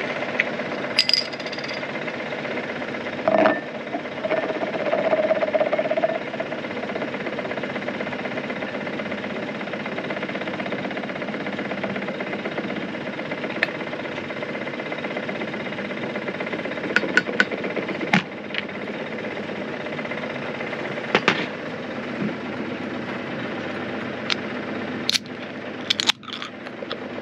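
Sailboat's auxiliary engine running at a steady idle, with a few sharp clicks above it; the last clicks, near the end, come as a can's pull tab is lifted.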